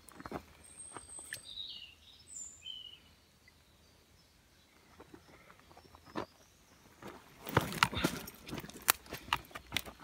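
Footsteps and scrambling on loose dry soil as a person climbs across a ditch and up its bank. A quick run of loud crunching steps starts about three-quarters of the way through. A few short bird chirps come in the first few seconds.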